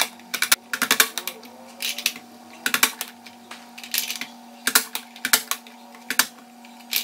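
Plastic manual vegetable dicer pressed down again and again, its hinged lid clacking as sweet potato slices are forced through the blade grid: sharp clacks in short clusters about every half second to second. A steady hum runs underneath.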